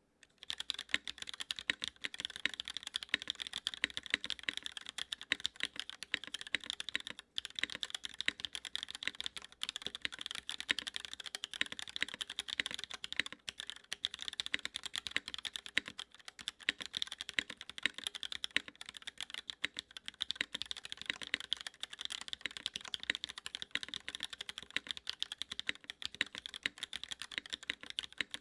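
Continuous fast typing on a Duck Orion V3 mechanical keyboard with Cherry MX Black linear switches, an aluminium plate and no case foam: a dense stream of key clacks, with a brief pause about seven seconds in.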